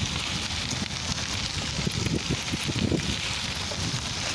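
Wind buffeting the microphone of a moving bicycle, with a steady fine crackle of the tyres rolling over a crushed-gravel path.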